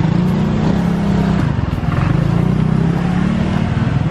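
A motor vehicle engine running steadily close by, a continuous low hum, over street traffic noise.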